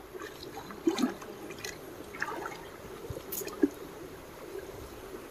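Water trickling and dripping, with a few short splashes or knocks.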